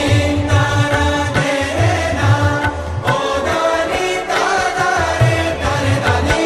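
Background devotional music in a chant style, with a melody over a steady beat.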